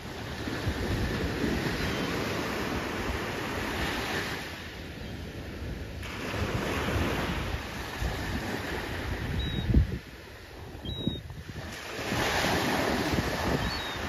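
Small surf breaking and washing up the beach, the noise swelling and fading every few seconds, with wind rumbling on the microphone. A short low thump, the loudest sound, comes about two-thirds of the way through.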